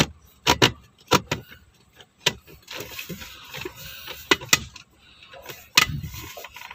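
A series of sharp plastic knocks and clicks, about eight in all with softer rustling between them, as a universal car armrest's mounting bracket is pushed and worked into place between the front seats.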